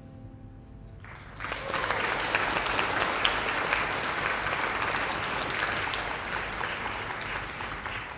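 The piano's last chord dies away, and about a second in an audience breaks into steady applause.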